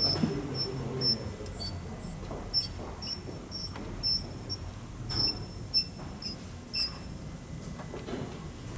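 Short, high-pitched squeaks from the front brake of a BMW 1 Series, about two a second and unevenly spaced, as the raised wheel is worked by hand. The mechanics suspect the anti-squeal shims on the brake pads.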